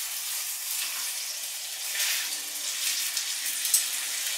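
Chicken frying in oil in a frying pan: a steady sizzle with a few scattered crackles of spitting oil.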